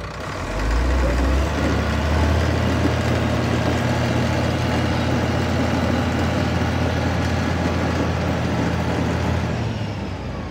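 Caterpillar D6 bulldozer's diesel engine running steadily. It grows louder over the first second or so, then holds a steady low drone.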